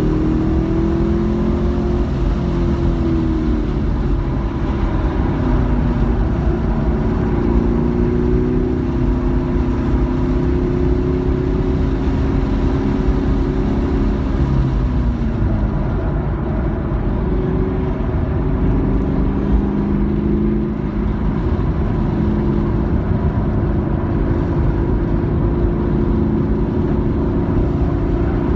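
Car engine heard from inside the cabin while lapping a race circuit, its note rising as it accelerates and dropping off several times on lifts and braking, over steady road and wind noise.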